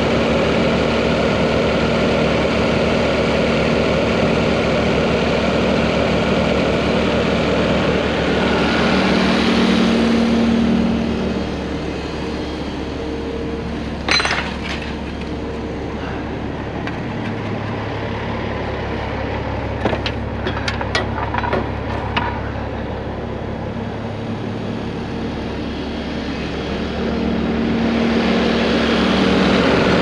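Diesel engine of the recovery equipment idling steadily, louder at the start and again near the end. A few sharp metallic clinks come in the middle, one on its own and then a short cluster, like the recovery chain being handled.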